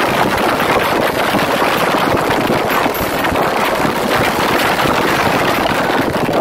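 A string of firecrackers going off in a loud, rapid, unbroken crackle.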